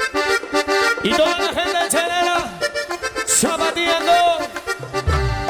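Live Peruvian cumbia band playing an instrumental passage: a reedy, accordion-like lead melody with sliding notes over percussion, and heavy bass coming in about five seconds in.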